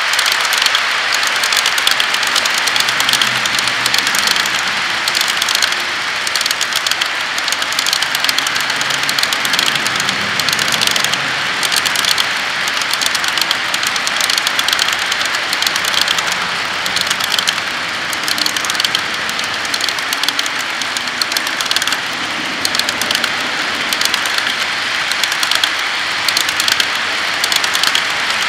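A long HO-scale model freight train of boxcars rolling past on the track: a steady, dense clatter of many small wheels on the rails, with no let-up.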